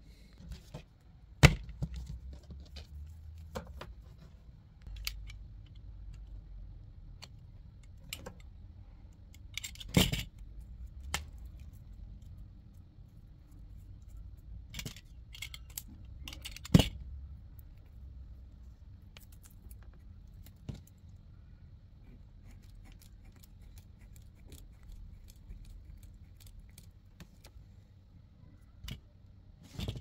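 Hand work with small tools and metal parts: scattered sharp clicks and clinks, the loudest about a second and a half in, near ten seconds and near seventeen seconds, over a low background hum.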